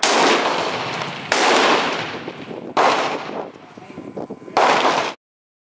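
Four gunshots at a shooting range, about a second and a half apart. Each crack is followed by a long echoing tail. The sound cuts off suddenly near the end.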